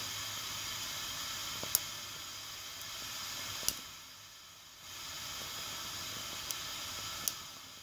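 Wilesco toy steam engine's boiler coming up to the boil: a steady hiss with four sharp clicks spread through it. The hiss dips briefly about four seconds in.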